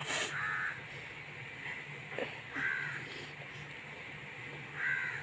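Crows cawing a few times in the background, short harsh calls spaced a second or two apart.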